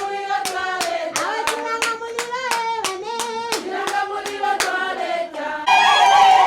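A group of women singing together with steady hand clapping, about three claps a second. Near the end it cuts suddenly to louder crowd chatter.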